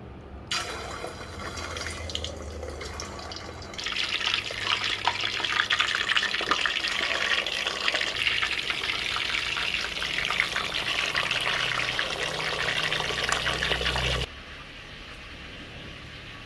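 Raw chicken drumsticks deep-frying in a pot of hot oil, a dense sizzle and crackle that starts suddenly as the first piece goes in. It grows louder about four seconds in and cuts off abruptly near the end.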